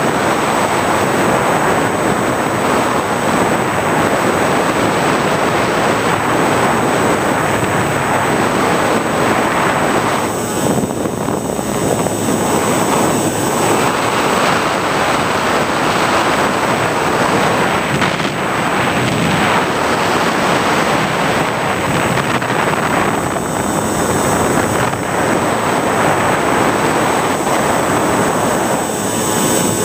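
Onboard sound of an FPV model airplane in flight: a loud, steady rush of wind and propeller noise on the camera's microphone, easing off briefly twice, with a faint steady high whine throughout.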